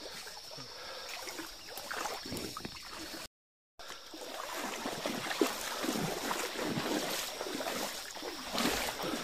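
River water sloshing and splashing irregularly as someone wades through the shallows, with wind noise on the microphone. The sound drops out to silence for about half a second a third of the way in.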